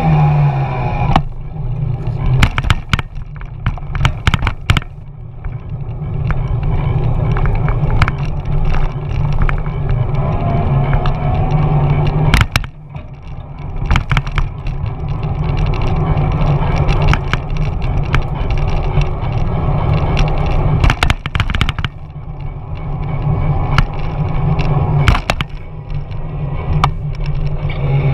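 Wind buffeting and road rumble on the microphone of a camera mounted on a moving electric mountain bike, broken by many sharp clicks and knocks as the bike rattles over bumps in the street.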